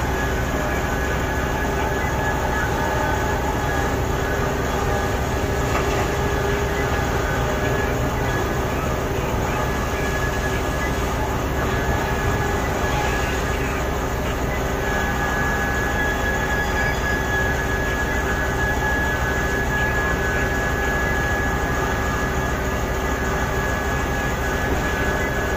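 Heavy diesel mining machinery, a Komatsu PC4000 hydraulic mining shovel working an XCMG haul truck, running steadily: a dense engine drone with a steady hum and a high whine that grows stronger about halfway through.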